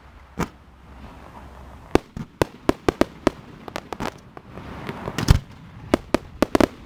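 Fireworks display: a rapid, irregular series of sharp bangs from shells bursting overhead, clustered in volleys, the loudest about five seconds in.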